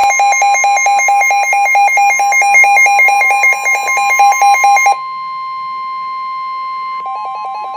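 Emergency Alert System alert tones. A loud electronic tone warbles fast between two notes for about five seconds, then holds one steady note, and the warble starts again near the end. The tones announce a severe thunderstorm warning.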